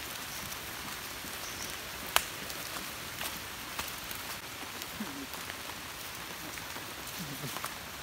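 Light rain falling: a steady patter with scattered drop ticks and one sharp click about two seconds in.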